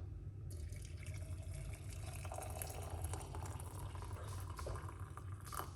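Hot water being poured in a steady stream into a container over lemon peel, ginger and cloves, filling it.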